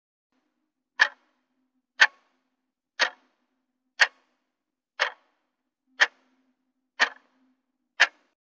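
Clock-tick sound effect marking a countdown timer: eight sharp ticks, one every second, starting about a second in.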